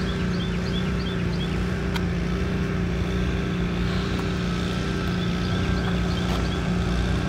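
A steady low mechanical hum with a constant droning tone under a rushing background, and a few faint high chirps about a second in.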